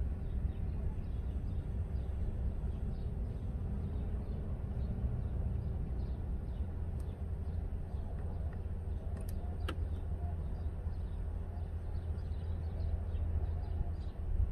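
Steady low outdoor rumble with faint, quick bird chirps repeating high above it throughout, and a couple of sharp clicks about nine to ten seconds in.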